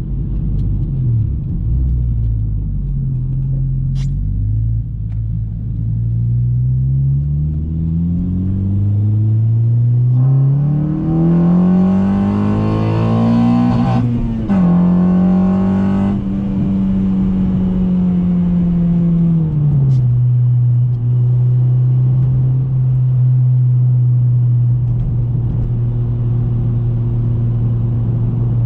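2014 Honda Civic Si's 2.4-litre four-cylinder running through an Invidia N1 exhaust and KTuned short ram intake. The engine note holds steady, then climbs steadily for several seconds, drops a step about halfway through, holds, and drops again to a steady lower drone.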